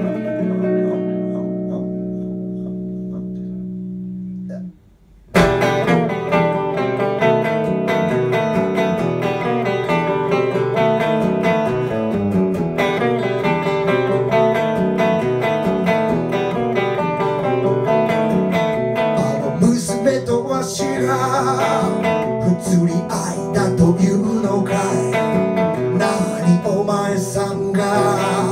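Amplified hollow-body electric guitar played live. A held chord rings and fades for about five seconds and cuts off briefly, then a driving strummed rhythm comes in. A man's singing voice joins in past the middle.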